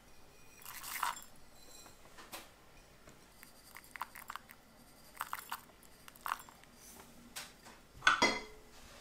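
Sesame seeds being sprinkled onto a ceramic bowl of bibimbap: a short rustle about a second in, scattered small clinks in the middle, and a louder clink against the bowl near the end.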